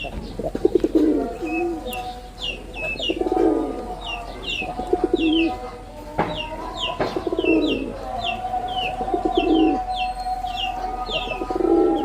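Male Jalali rock pigeons cooing, a low throaty coo rolling out about every two seconds, while small birds chirp in quick, high notes throughout.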